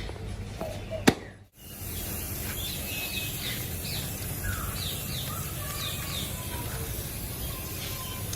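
Small birds chirping in short, quick falling notes over a steady low background rumble. A single sharp click about a second in, then the sound cuts out briefly before the chirping begins.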